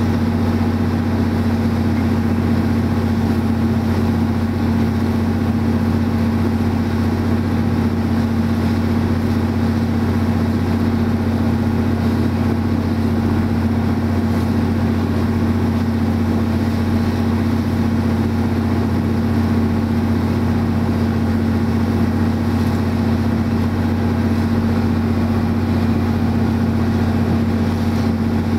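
A boat's engine running steadily at constant speed, heard from on board while under way: an even, unchanging low hum.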